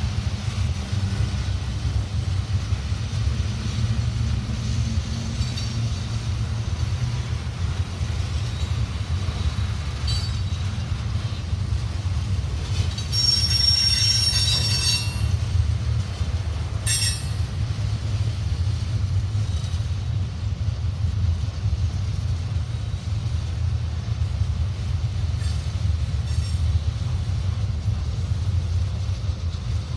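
Freight cars rolling past on the rails with a steady low rumble. A high-pitched wheel squeal rings out for about two seconds near the middle, with shorter squeals a few seconds before and after.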